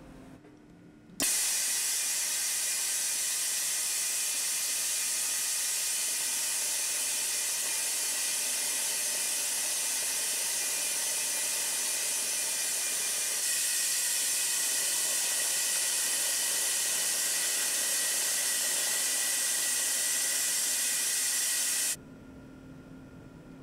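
Steady hiss from a lab test rig working on a black plastic motorcycle part. It switches on abruptly about a second in, gets slightly louder about halfway through and cuts off abruptly near the end.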